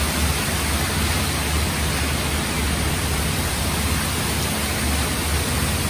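Heavy tropical-storm rain driven by strong wind: a steady, dense hiss of downpour with a low, fluctuating rumble beneath it.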